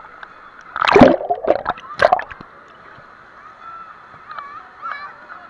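Wave-pool water splashing and sloshing around a camera held at the surface, with two loud splashes about one and two seconds in. Faint voices of swimmers can be heard behind.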